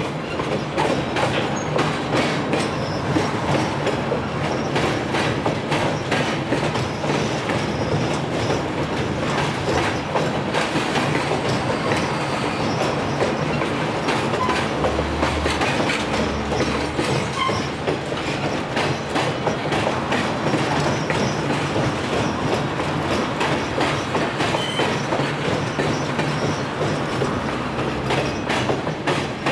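Empty log flatcars of a diesel-hauled freight train rolling over a steel railway overpass: a steady rumble of wheels with a continuous clatter of clicks and knocks as the trucks pass over the bridge.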